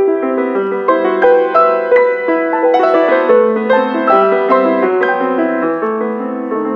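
Grand piano played four hands, two players at one keyboard: a flowing passage of overlapping notes, ending on a held chord that fades away near the end.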